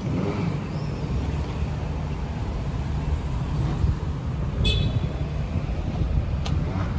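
Street traffic: a steady low rumble of vehicle engines, with a brief high squeal about two-thirds of the way through and a sharp click near the end.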